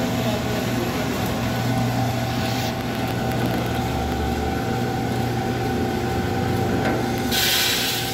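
Coffee roaster's motors and fans running steadily with the cooling tray's stirring arms turning. About seven seconds in, freshly roasted coffee beans start pouring out of the roasting drum into the perforated cooling tray with a sudden loud rush.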